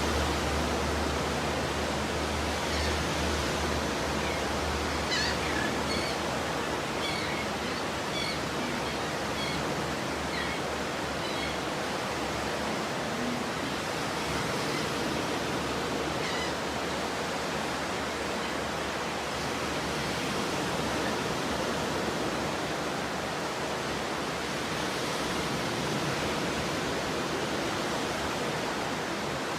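Stormy ocean surf: a steady, continuous wash of wave noise with a low rumble underneath. A few faint high chirps come and go between about five and twelve seconds in.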